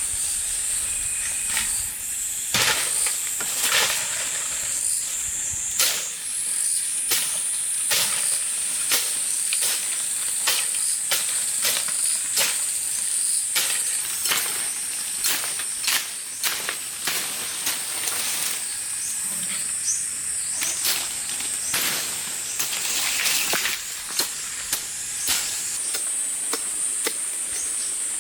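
Insects buzzing in one steady high-pitched drone, with many irregular sharp clicks and knocks throughout.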